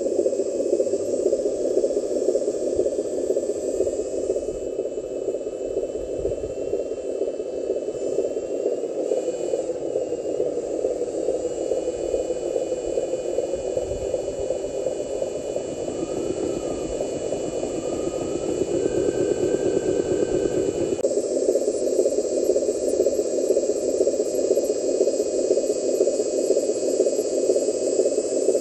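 Small electric drive motor and gearbox of a radio-controlled dump truck running steadily, with a thin high whine that shifts a little in pitch, as the truck crawls over gravel. The sound gets louder about three quarters of the way through.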